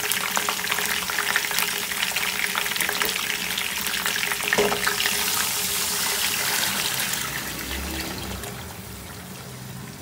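Hot oil with whole spices and coconut slices sizzling and crackling in a karahi as jaggery syrup is poured in. The sizzle eases off in the last few seconds as the syrup covers the pan.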